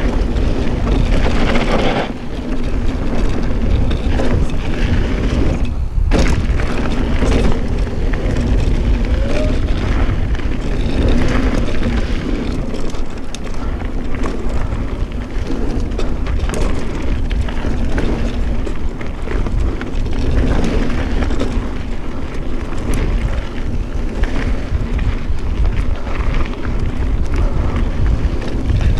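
Specialized StumpJumper mountain bike being ridden on a dirt trail, heard from a camera riding along: a loud, steady, low rumble with constant small rattles and clicks.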